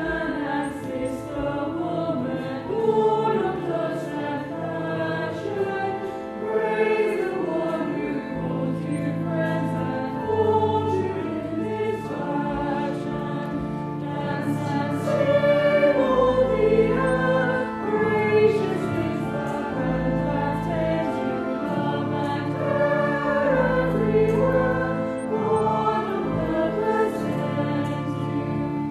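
Choir singing a hymn, with long-held low bass notes underneath that change every second or two.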